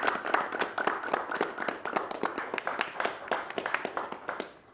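A group of people applauding, the clapping dying away near the end.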